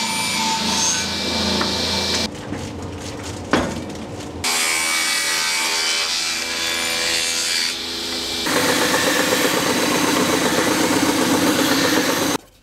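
Table saw ripping strips from film-faced plywood, in a few separate cuts with a quieter gap about two to four seconds in. In the last few seconds a strip is run against an edge belt sander, a steady rubbing sound that stops abruptly just before the end.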